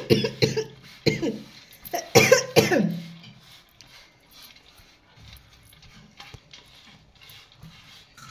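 A person coughing several times over the first three seconds, loud and hoarse. Afterwards faint light patters of cooked basmati rice being dropped into the pot.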